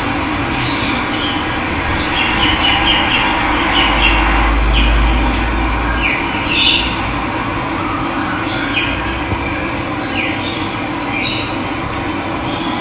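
Steady rush of running water with scattered short bird chirps over it. A low rumble swells briefly about four seconds in.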